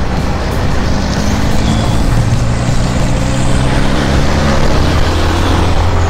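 Motorcycle engine running while riding along a street, heard from a bike-mounted camera with steady wind and road noise. The engine note drops slightly about four seconds in.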